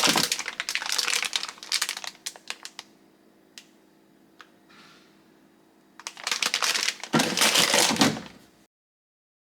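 Bursts of rapid crinkling and clattering, like something being handled. A few single ticks follow in a lull, then a second loud burst about six seconds in. It cuts off suddenly to silence about a second before the end.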